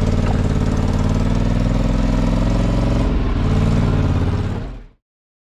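Polaris Sportsman 850 ATV's twin-cylinder engine running steadily, fading out about four and a half seconds in and cutting to silence.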